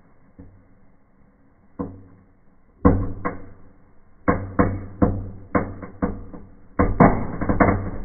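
Fireplace fireworks burning inside a paper-tube cracker, giving off sharp cracks and pops: a few scattered ones at first, then rapid crackling from about three seconds in that grows denser near the end.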